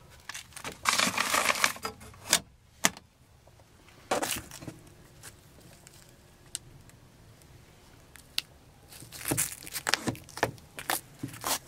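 Handling noises in a car interior: a short rustle about a second in, then scattered clicks and knocks as the sun visor is folded down and held, with a cluster of knocks near the end.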